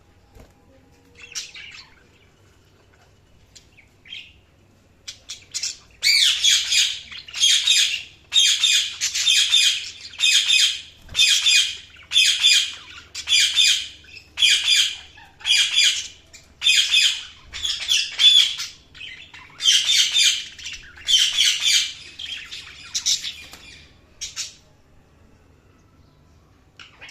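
Budgerigar calling: a few faint chirps, then from about six seconds in a long run of loud, harsh squawks a little more than one a second, stopping a few seconds before the end.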